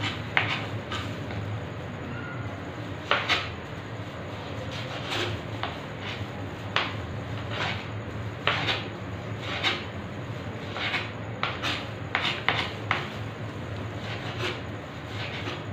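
Kitchen knife knocking and scraping on a cutting board while vegetables are cut, in irregular strokes about a dozen times, over a low steady hum.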